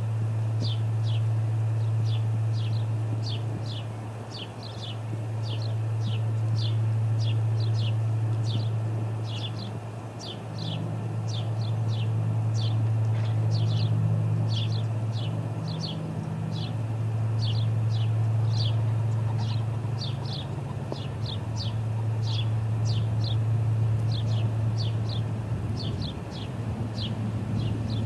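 Ospreys calling steadily, a run of short, high, falling chirps about two a second, over a low rumble of wind on the microphone that swells and fades in gusts.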